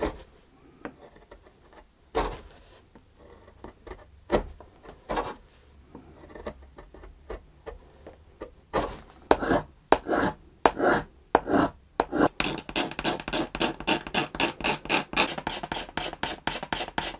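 Hand gouge cutting into the wooden back of a cello, short shaving strokes that lift out chips, spaced about a second apart. About twelve seconds in they give way to a quick run of short scraping strokes, about four a second, as the pit for a soundpost patch is worked down.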